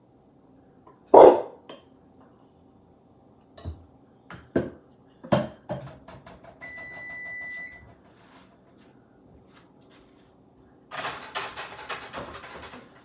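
A dog barks once about a second in. Then scattered knocks and clinks of a spoon scraping batter from a bowl into a glass baking pan, a single steady electronic beep of about a second from a kitchen appliance midway, and a burst of clattering near the end.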